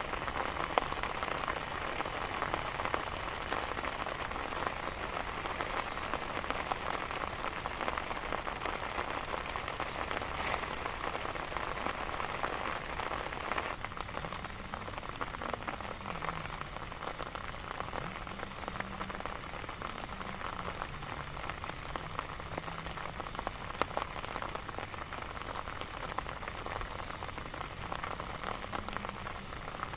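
Heavy rain falling steadily, a dense hiss of many drops pattering on surfaces, easing slightly about halfway through.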